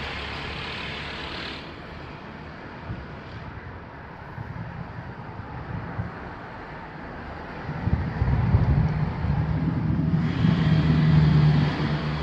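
Road traffic: a low hiss at first, then a motor vehicle's engine swelling from about eight seconds in into a steady hum, growing louder near the end as it comes closer.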